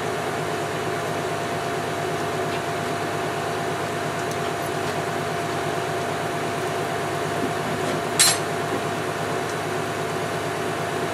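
An engine running steadily under an even hiss of falling rain, with one sharp knock about eight seconds in.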